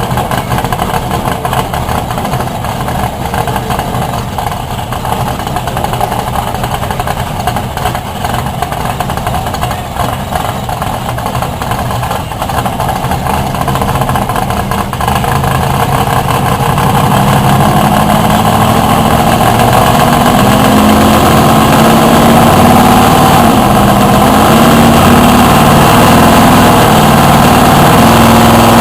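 ProCharger F3-supercharged all-aluminum 572 big-block V8 of a Ford Thunderbird drag car running on a chassis dyno. It runs steadily at first, then about halfway through it gets louder and climbs in pitch as the pull builds.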